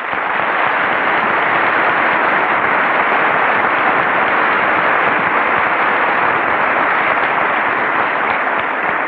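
Large audience applauding, a dense, steady clapping that holds at full strength.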